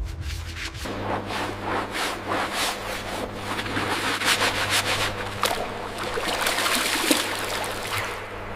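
A steady low machine hum that starts about a second in, under an irregular rustling, scraping noise.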